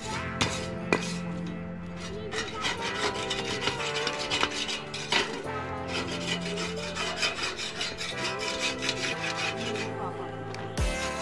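Steel-wire grill brush scrubbing the hot cooking grate of a small charcoal kettle grill in quick, repeated rasping strokes, cleaning off stuck residue before cooking. A knock near the end.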